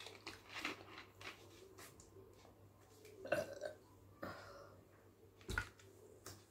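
A woman burping after drinking carbonated cumin masala soda: two loud short burps, about three and five and a half seconds in. Clicks of the plastic bottle's screw cap come first.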